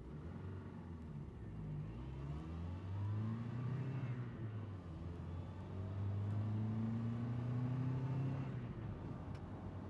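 Small motor of a motorized pink toy jeep whirring as it drives, its pitch rising and falling with speed and loudest between about six and eight and a half seconds in.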